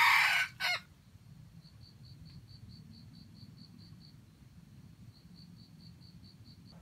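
The tail of a loud rooster crow, ending with a short last note under a second in. It is followed by a faint, high, pulsing chirp of about five notes a second, heard in two runs.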